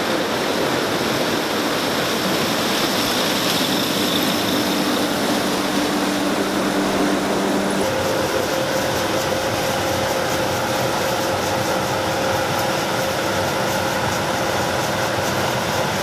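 A Gleaner M2 combine running steadily as it harvests corn: a loud, even machine noise with a steady hum that changes pitch about halfway through.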